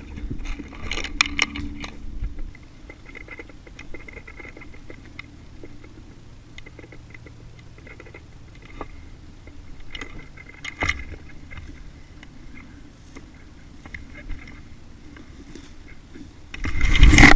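Faint rustling with scattered sharp clicks and knocks, like gear being handled and moved. A loud low rushing noise starts near the end.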